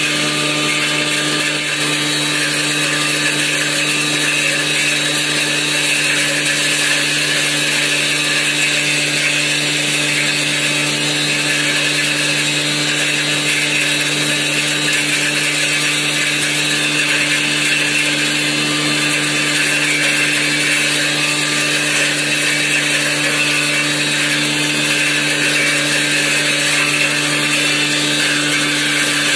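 Electric turmeric grinding machine running steadily while grinding dried turmeric pieces to powder as they are fed by hand into its inlet. A steady motor hum lies under a loud, even grinding noise.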